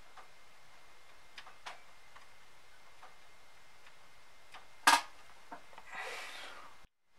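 Scattered faint clicks and one much sharper click about five seconds in, followed by a short hiss. The sound cuts out completely just before the end.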